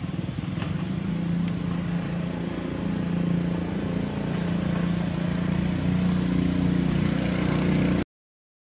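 A steady low motor hum over outdoor background noise, cutting off suddenly about eight seconds in.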